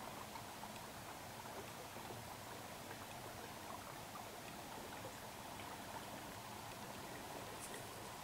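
Faint, steady outdoor background hiss, with a couple of faint high crackles near the end.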